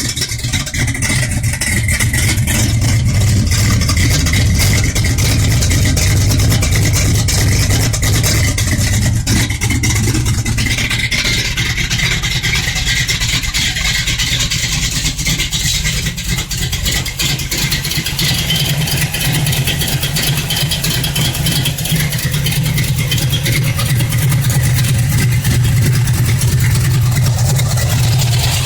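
1991 Chevrolet S10's 357 small-block Chevy V8 with a mild cam idling rough through a 2.5-inch exhaust with Flowmaster 40 Series mufflers.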